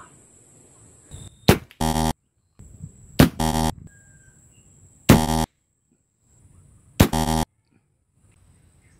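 Four sharp cracks of a PCP air rifle firing, about two seconds apart. Each is followed at once by a short, harsh buzzer sound effect of the game-show 'wrong answer' kind, marking the shot as a miss.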